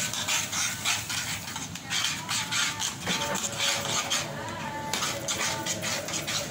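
Metal spoon stirring and scraping around a heavy pan of thin wheat-milk halwa batter as sugar is mixed in: a run of short scrapes and light clinks.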